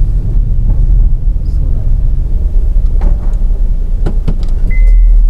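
A car driving slowly, its engine and road noise heard from inside the cabin as a steady low rumble, with a few short clicks about three to four seconds in. A high steady tone starts just before the end.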